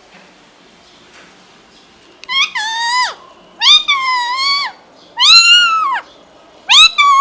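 Indian ringneck parrot giving four loud, drawn-out calls, each under a second long and rising then falling in pitch, starting about two seconds in.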